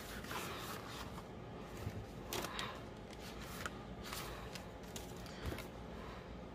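Stiff cardstock topper sheets from a card-making kit being handled, giving scattered light rustles and taps.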